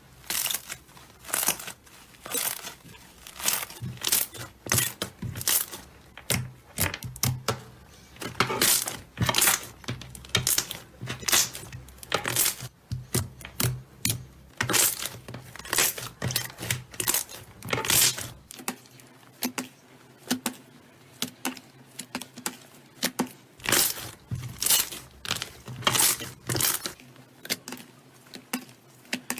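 Slime being squeezed and pulled, making repeated short crackling squishes at about one or two a second.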